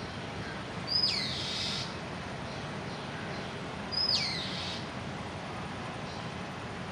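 A bird calls twice, about three seconds apart. Each call is a short high note that slides steeply down in pitch, over a steady outdoor background hiss.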